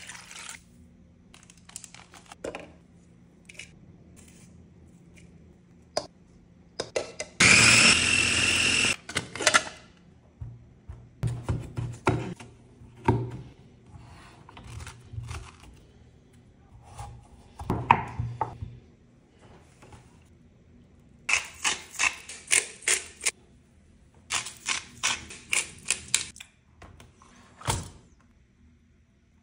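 Kitchen food-prep sounds: knocks and thunks of utensils, bowls and a cutting board being handled. About a quarter of the way in there is a loud, steady rushing noise for about two seconds, and in the later part two runs of quick, rhythmic strokes.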